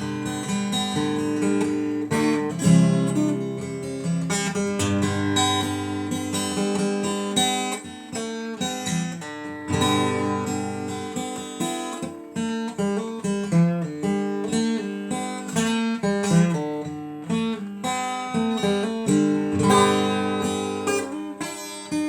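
Acoustic guitar played on its own, strummed and picked through changing chords, with no voice.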